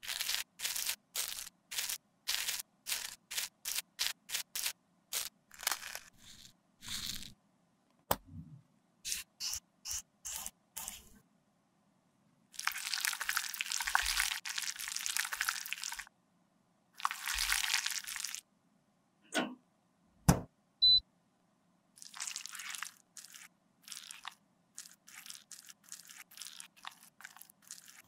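Close-up scraping and crunching from makeup being worked by hand: a metal spatula scraping pressed eyeshadow out of a palette pan in quick short strokes, about two a second. Later come a few longer scraping runs of several seconds each, a few sharp clicks, and more short scrapes.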